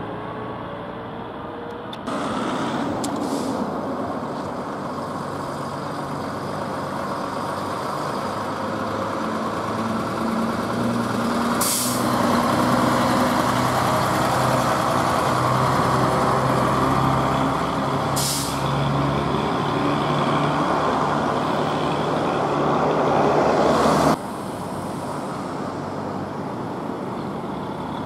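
Vintage diesel buses driving past one after another, their engines running steadily and growing louder as a double-decker comes close. There are short hisses of air brakes about three times. The sound drops back suddenly near the end.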